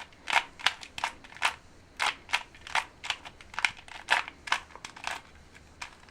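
A Rubik's 2x2x2 stickerless cube being turned fast during a solve: a run of sharp plastic clicks from the layers snapping round, about two or three a second, that stops about five seconds in.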